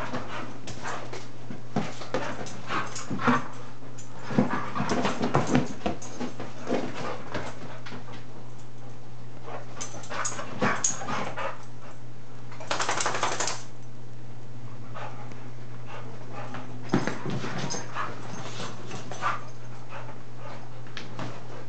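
Two dogs playing: short dog sounds and scuffling in scattered bursts, busiest in the first few seconds and again near the end, with a brief rush of noise about halfway through. A steady low hum runs underneath.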